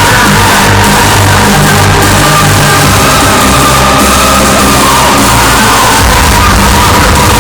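Loud hardstyle music from a live DJ set, with a heavy bass line and the crowd shouting and whooping over it; the recording is overloaded and sounds poor.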